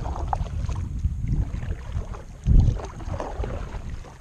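Kayak paddle strokes splashing in the water, with wind buffeting the microphone and a heavy low thump about two and a half seconds in.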